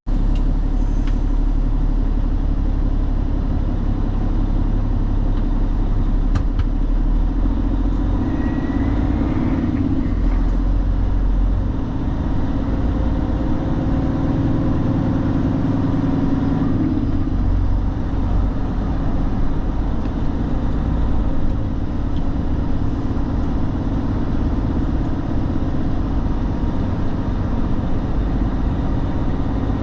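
Truck engine running steadily with a constant low drone and vehicle noise.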